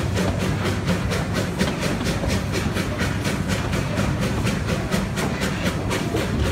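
Coal-fired 2-6-2T narrow-gauge steam locomotive chuffing in a quick, even beat a few carriages ahead, over the steady rumble of the carriage running on the rails.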